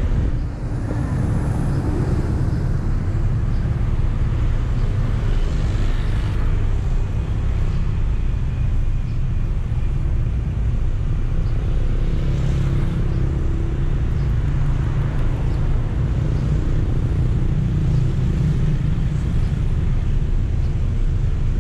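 Steady low rumble of road traffic and vehicle noise while moving through city streets.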